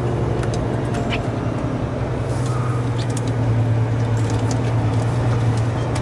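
Truck's diesel engine droning steadily under load as the truck labours up a steep climb, with a few light ticks over it.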